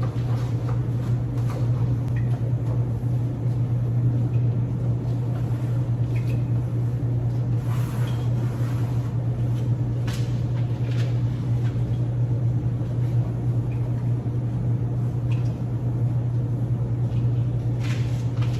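A steady low hum throughout, with faint, scattered rubbing sounds of a damp towel wiping the inside of a microwave door.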